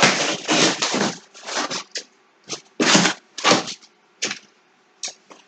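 Packaging rustling and crinkling as a parcel of yarn is handled and opened, in a run of short bursts that grow sparser toward the end.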